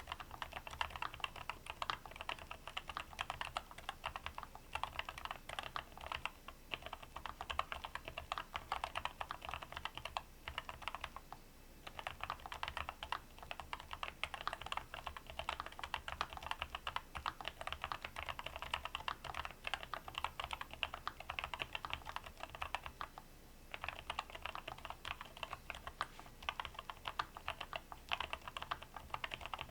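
Fast typing on a NuPhy Air96 V2 low-profile mechanical keyboard with Wisteria switches: a dense, steady stream of keystroke clacks, broken by a short pause about ten seconds in and another about twenty-three seconds in.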